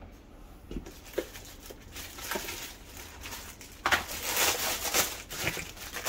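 Thin plastic bag crinkling and rustling as it is handled around the sterilizer, faint at first with a few small knocks, then loud from about two-thirds of the way in.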